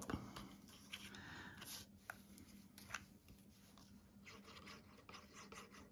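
Faint rustling and light taps of cardstock being handled, with a liquid glue applicator dabbed onto paper, against a faint low hum; otherwise near silence.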